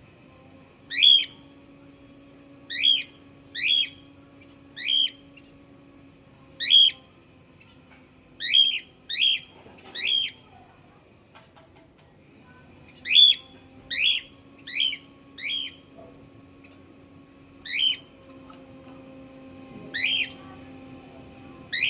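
Cockatiel giving its short, sharp, high contact call about fifteen times, roughly a second apart and sometimes two or three in quick succession, over a faint steady low hum.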